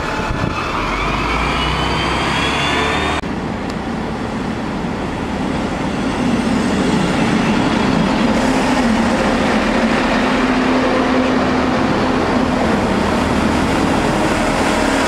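Street traffic for the first three seconds, then a diesel multiple-unit passenger train's engines running alongside the platform as the train moves. A steady drone builds from about six seconds in and holds.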